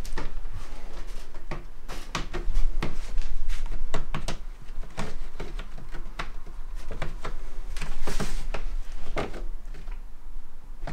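Cat's claws scratching at a carpeted cat tree: an irregular run of short rasping strokes and light knocks.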